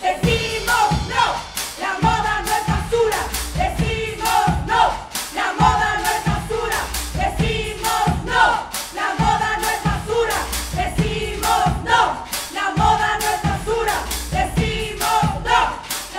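Music with a group of voices chanting over a steady, pounding drum beat.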